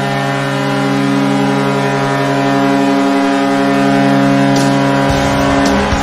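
Vancouver Canucks arena goal horn: one long, steady, deep blast that holds a single chord and cuts off near the end. A noisier sound rises beneath it about five seconds in.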